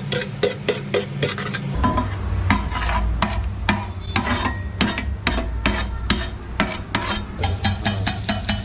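Metal spatula striking and scraping a large flat iron tawa about three times a second as pav bhaji is mashed and stirred, with food sizzling on the hot pan.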